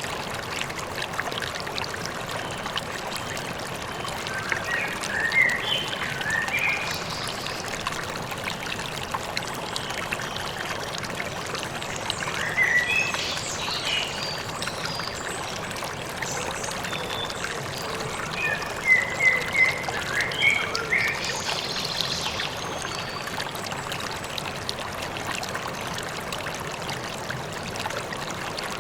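Steady rush of a river or stream, with small birds chirping in short bursts of quick notes at intervals over it.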